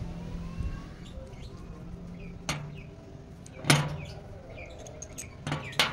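Steel clamp parts clinking together as a threaded rod and its handle are fitted into the nut of a homemade C-clamp: four sharp metal knocks, the loudest about two-thirds of the way through, over a steady low hum.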